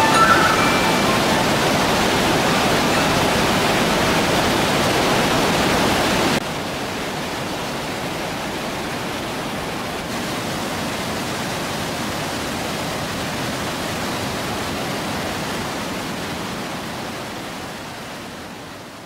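Gastein waterfall in Bad Gastein rushing, a steady loud rush of falling water. About six seconds in it drops suddenly to a quieter, more distant rush, which fades away near the end.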